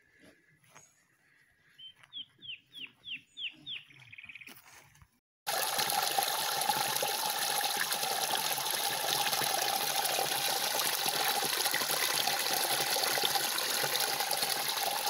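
Water from a small cascade pouring into a pool: a loud, steady rush that starts abruptly about five seconds in. Before it there are faint sounds and a bird's quick run of about seven high, falling notes.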